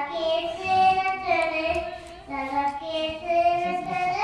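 A small girl singing into a microphone, a child's high voice holding long drawn-out notes, with a short breath about halfway through.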